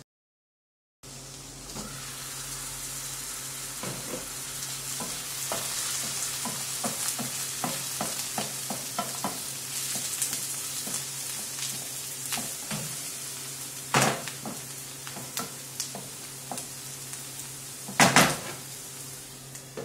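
Diced onions and carrots sizzling in olive oil in a frying pan, while a wooden spoon stirs and scrapes them with many small clicks. There are two louder knocks, the second near the end. The sound starts after about a second of silence.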